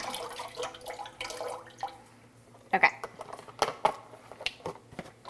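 Beef stock pouring from a carton into a stainless steel saucepan, a splashing liquid sound that fades out over about two seconds. A few sharp light knocks follow in the second half as the carton is handled over the pot.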